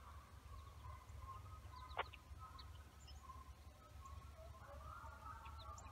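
Faint outdoor ambience: distant wavering animal calls and short high bird chirps over a low steady hum, with one sharp click about two seconds in.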